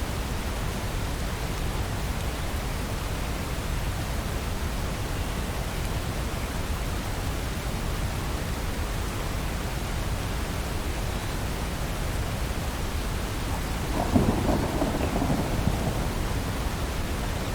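Steady rain falling. About fourteen seconds in, a low rumble of thunder sets in with a sharp start and goes on, louder than the rain.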